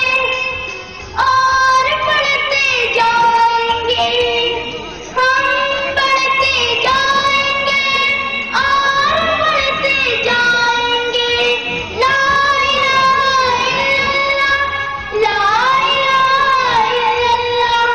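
A boy singing solo into a microphone, in long held notes that bend in pitch at the ends of phrases.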